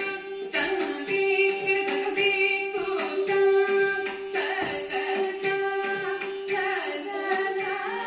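Recorded Carnatic devotional song to Ganesha: a female voice singing over a steady held drone note, the accompaniment for a classical dance piece.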